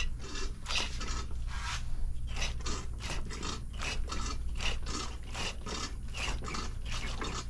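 Hand pump of a battery watering kit worked in steady strokes, about two to three a second, each stroke a short scratchy scrape, pushing distilled water through the watering lines into golf cart batteries.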